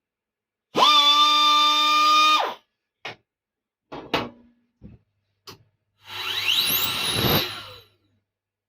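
Turbocharger core spun up on a balancing rig: a steady high whine for about a second and a half, a few clicks, then a second spin with air hiss and a whine climbing steeply in pitch before it stops.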